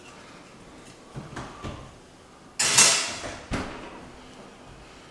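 Kitchen oven door being handled: a few soft knocks, then a sudden loud clunk about halfway through that trails off, and a sharp knock about a second later.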